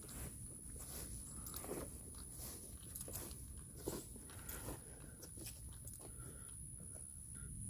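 Footsteps crunching irregularly through dry leaf litter and twigs, with a steady high-pitched whine underneath.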